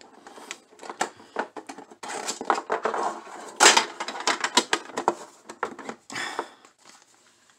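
Hands handling trading-card packaging on a wooden table: a run of clicks, taps and short scrapes as a clear plastic case is closed and a metal collector's tin lid is fitted on, with the loudest knock about three and a half seconds in. It thins out near the end.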